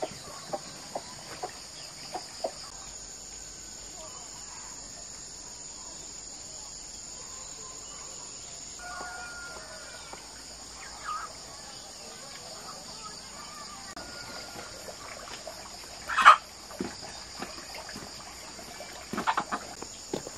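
Chickens clucking and calling now and then over a steady high buzz of insects, with one loud call about three-quarters of the way through. A few sharp taps come in the first couple of seconds.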